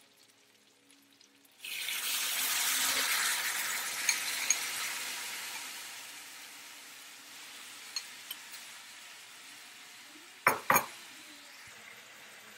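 Food hitting a hot oiled pan and sizzling: a sudden hiss that fades slowly as the pan recovers, with a few light clicks of a utensil and two sharp knocks close together near the end.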